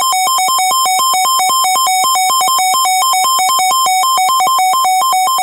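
Loud electronic emergency alert tone switching rapidly back and forth between two pitches, several times a second, sounding ahead of the next severe thunderstorm warning.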